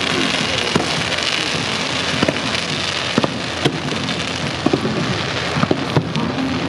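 Fireworks display: a dense, steady hiss of rockets and fountains climbing, with sharp bangs about every second.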